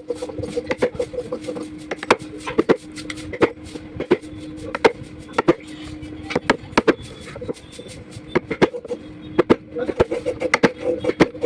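Rapid, irregular sharp knocks of a tool striking wood, about three or four a second, over a steady low hum.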